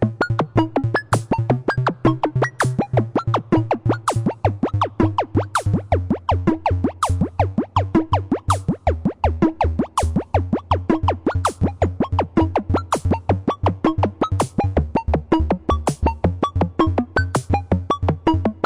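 Upbeat electronic music: a fast run of short synthesizer notes over a steady bass line, with a drum-machine beat; the bass note shifts down about halfway through.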